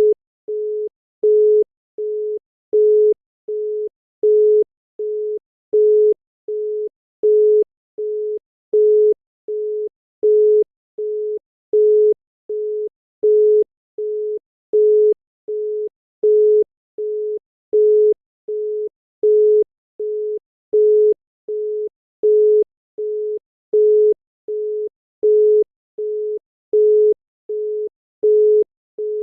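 Australian telephone congestion tone: a single 425 Hz tone beeping on and off in short even pulses that alternate loud and softer. It signals that the lines or switching equipment needed for the call are temporarily engaged.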